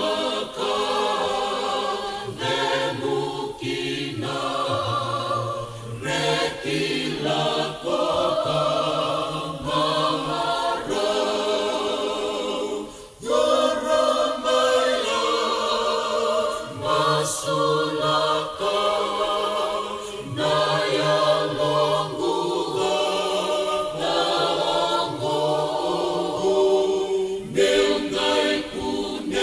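Fijian gospel choir singing a hymn in several voice parts, with a low bass line under the higher voices. The phrases flow on with a brief pause about 13 seconds in.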